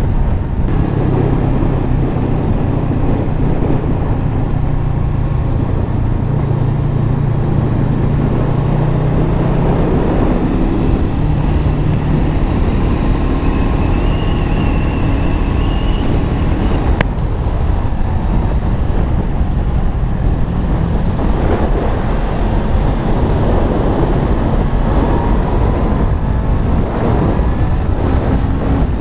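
Honda CBR500R's parallel-twin engine running while the motorcycle is ridden, with wind rushing over the microphone. In the second half the engine note rises again and again as the bike speeds up to highway speed.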